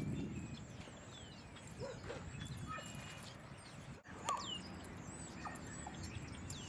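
Dogs giving a few short, faint yips and whines over a low, steady outdoor background.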